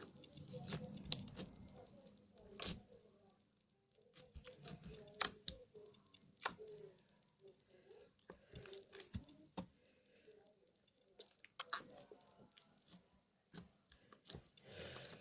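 Slime being squeezed and stretched by hand, giving irregular sticky clicks and pops.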